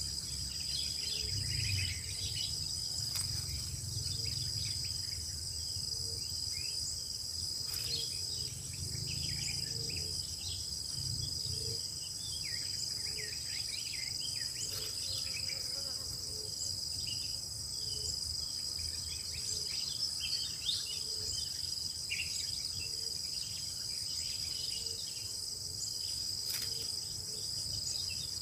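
Steady, high-pitched insect chorus, with scattered short bird chirps and a soft low note repeating about once a second.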